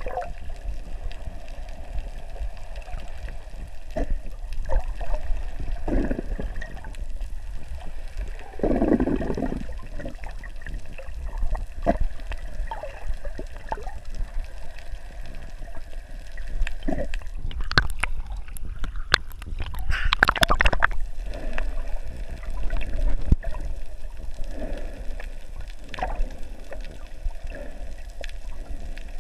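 Water gurgling and sloshing around an underwater camera, over a steady low rumble with scattered small clicks. Louder surges of gurgling come about a third of the way in and again, stronger, around two-thirds of the way through.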